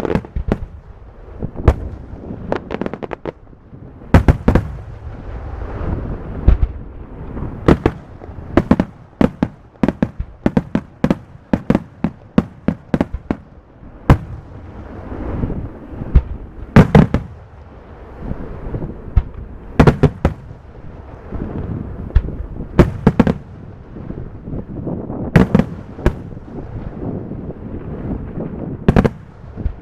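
Aerial fireworks display: shells bursting in quick, irregular succession, sharp bangs with a rumbling echo between them. A dense run of rapid reports fills the middle, with single heavier bangs standing out at intervals.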